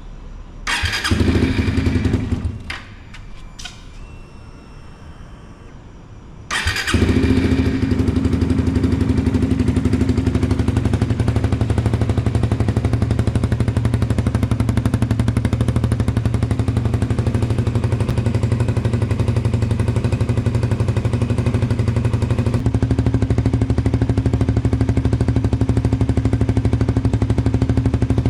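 Suzuki GSX-R150 single-cylinder engine idling steadily through an aftermarket exhaust, setting in about six and a half seconds in. Before that there is a short loud burst of engine sound about a second in, followed by a few clicks.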